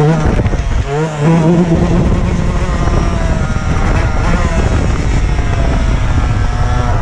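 Dirt bike engine revving up briefly about a second in, then running at a steadier speed with its pitch slowly falling.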